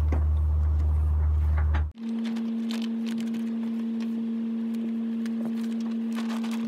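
Steady machinery hum. For about two seconds it is a deep drone, then it cuts off sharply and is replaced by a higher, even hum of a few held tones, with scattered light ticks and knocks.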